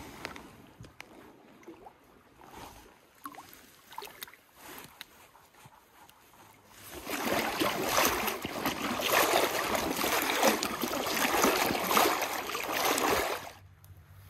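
Water splashing and churning as legs in waders push through a shallow creek, loud from about seven seconds in for some six seconds, then stopping. Before that, only faint small splashes and knocks.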